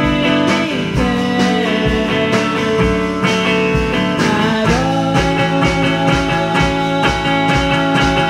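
Background rock music: guitar over a steady beat, with sliding, bending guitar notes about halfway through and near the end.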